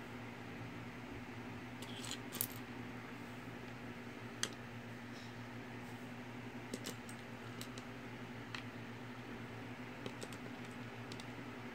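Small plastic Mega Bloks bricks being handled and set down on a table: scattered light clicks and clacks at irregular intervals, a few in quick succession about two seconds in, over a steady low hum.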